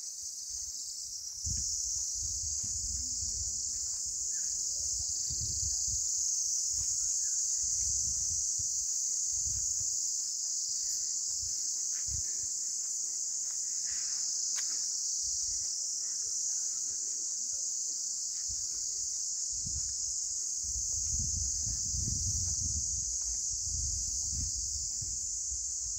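Steady, high-pitched insect chorus, one continuous shrill drone that gets louder about a second and a half in, with low rumbling coming and going underneath.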